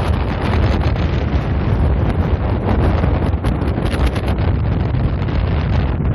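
Wind blowing across the microphone: a loud, steady rush, heaviest in the low end, with no letup.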